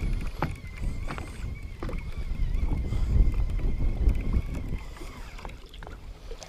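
Small waves lapping and slapping against the hull of a small fishing boat, with wind rumbling on the microphone and a few light knocks. A faint, steady high whine runs underneath and fades out about five seconds in.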